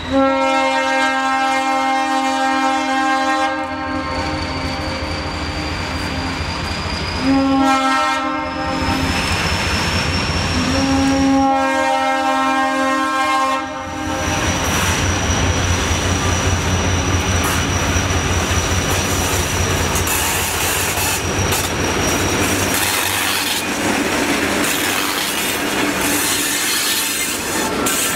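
Diesel freight locomotive sounding its chime air horn three times (a long blast, a short one, then another long), then passing close with its engine rumbling low, followed by freight cars clacking over the rail joints. A thin high squeal runs through the middle.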